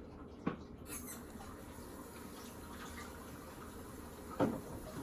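Faint scratching and handling of a semi-rimless eyeglass frame as a ribbon is worked in under the nylon cord to free the lens, with two small clicks, about half a second in and a louder one near the end.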